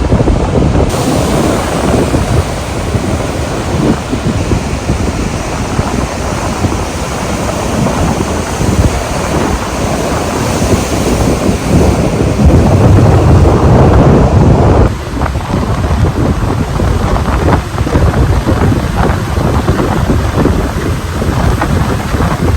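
Strong wind buffeting the microphone over ocean waves and surf, a dense low rumble that swells louder about twelve seconds in and drops back abruptly a few seconds later.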